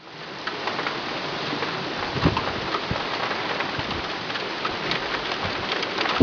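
Heavy rain falling steadily, with many sharp drops hitting close surfaces.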